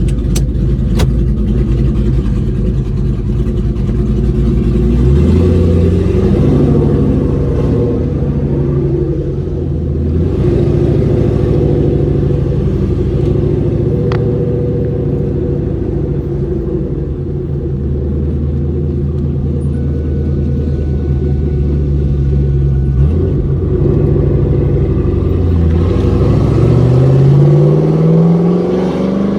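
Loud car engine and exhaust while driving, the engine note holding steady between several changes in pitch and rising as it accelerates, with a long climb in revs near the end.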